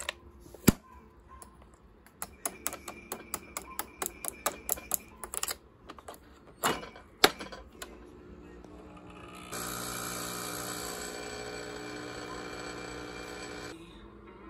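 A run of light, evenly spaced clicks, about four or five a second, then two sharper clacks. Then a small machine runs with a steady buzzing hum for about four seconds and stops abruptly.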